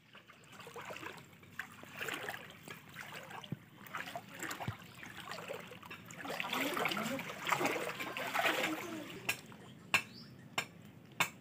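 Shallow floodwater sloshing and trickling, with uneven splashes as someone wades through it; a few sharp ticks come near the end.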